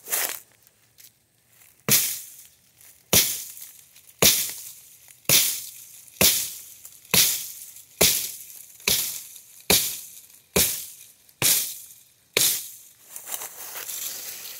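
Axe chopping into a small tree trunk: about a dozen sharp blows, roughly one a second and getting slightly quicker, stopping shortly before the end.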